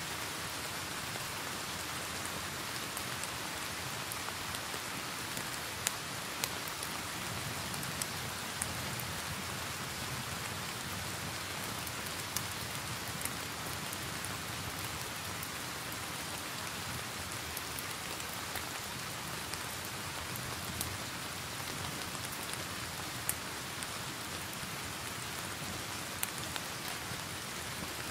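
Steady rain on a surface, laid together with a wood fire burning in a fireplace; a dozen or so sharp crackles and pops from the burning logs stand out at irregular intervals.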